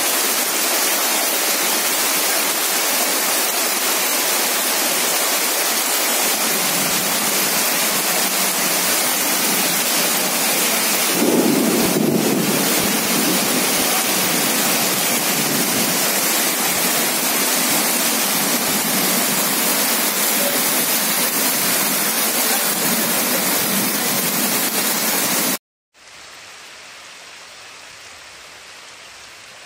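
Heavy rain pouring onto a flooded street, a dense steady hiss, with a brief louder swell about eleven seconds in. Near the end it cuts off abruptly and gives way to quieter rain falling onto standing water.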